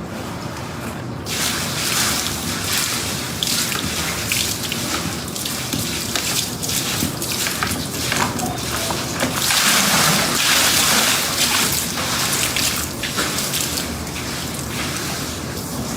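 Water splashing and running: a rushing, irregular hiss that starts about a second in and is loudest around ten seconds in.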